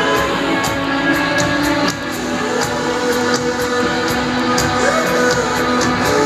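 Rock band playing an instrumental passage: guitars held over drums keeping a steady beat.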